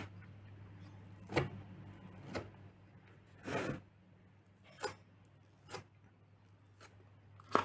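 Thin metal blade spreading wet grout over a board, five short scrapes, the one about three and a half seconds in lasting longer than the others, over a faint steady hum.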